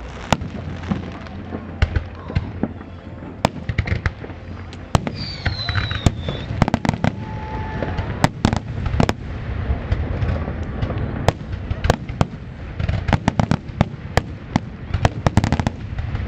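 Fireworks display: aerial shells bursting with sharp bangs and crackle at irregular intervals, turning into a rapid, dense run of bangs about three-quarters of the way in.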